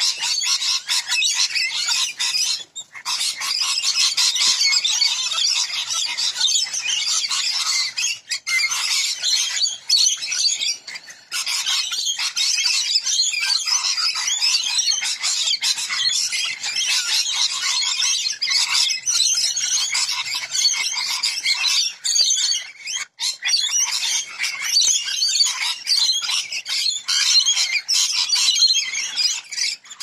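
A large flock of rainbow lorikeets screeching and chattering all at once while feeding, a loud, dense, unbroken din with only momentary dips.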